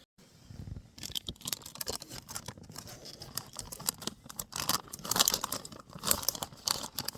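Irregular rustling and crinkling of fabric or plastic with scattered small clicks, as gear is handled and packed up.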